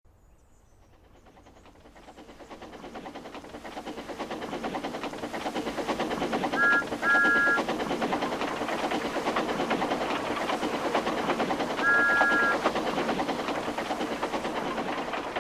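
Steam locomotive chuffing in a fast, even rhythm, fading in from silence and growing louder over the first several seconds. Its two-note whistle sounds a short toot and then a longer blast about six and a half seconds in, and another blast about twelve seconds in.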